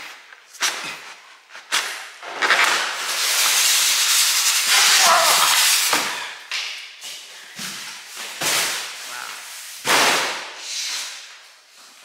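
Cardboard box being slid up and off a packed oven: cardboard scraping over polystyrene packing blocks and plastic wrap, with one long continuous scrape a few seconds in and several shorter rubs and scuffs after it.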